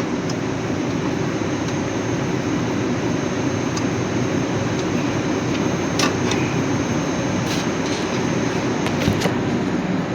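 Steady mechanical droning noise, with a few sharp metallic clicks from brake shoe springs being handled, the clearest about six seconds in and two more near the end.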